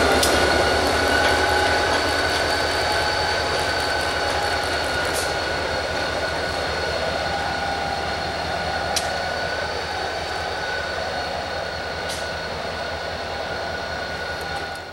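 Diesel locomotive running light as it pulls away, its engine and wheels fading slowly. A steady high-pitched whine runs through it, with a few sharp clicks, and the sound cuts off suddenly at the end.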